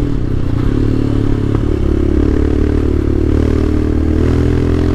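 Royal Enfield Himalayan's single-cylinder engine running under way at fairly steady revs, with a brief click about a second and a half in.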